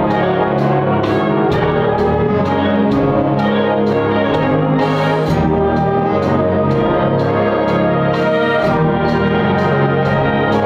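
Student concert band playing: saxophones, trombones and tubas hold full chords over a steady percussion beat of about two strokes a second.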